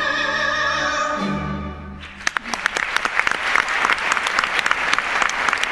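A man and a woman with orchestra hold the last sung note of a stage musical duet, which cuts off about two seconds in. An audience then breaks into applause.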